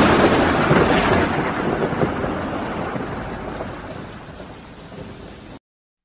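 Thunder rolling and slowly fading away after a loud clap, then cutting out suddenly near the end.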